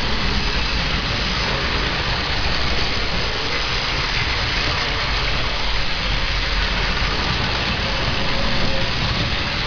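Tomy Plarail battery-powered toy trains running on plastic track, a steady whirr of their small motors and gears.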